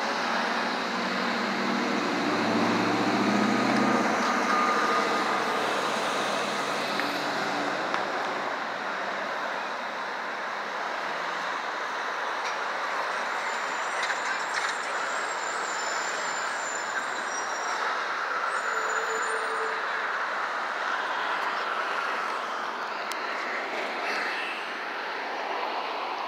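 City street traffic: a steady wash of passing vehicles, with a large vehicle's engine running close by through the first several seconds.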